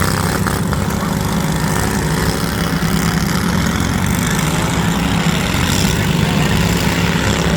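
Riding lawn mower engines running together in a steady, loud drone.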